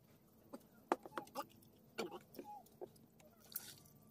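Faint eating sounds at a table: scattered light clicks and knocks of hands and dishes, with a few short animal calls in the background.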